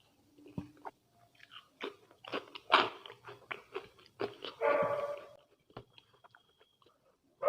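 Close-up chewing and crunching of potato chips, a quick run of crisp crunches in the middle. About five seconds in comes a short high whine.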